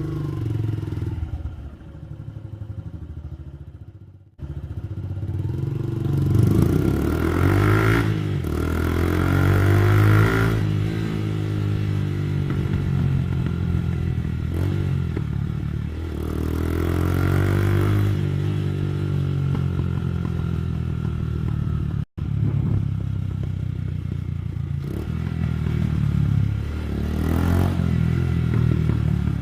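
Suzuki Gixxer 150 SF's single-cylinder engine revving through a modified exhaust, rising and falling several times, with crackles and pops as the revs drop. The sound cuts off abruptly twice, about four seconds in and again about twenty-two seconds in.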